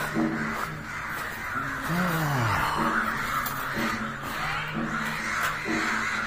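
Crows cawing again and again, with a low falling sound about two seconds in.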